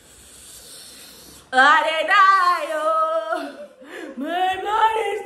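Women's voices singing long, wavering notes that slide up and down in pitch, starting about one and a half seconds in after a soft hiss.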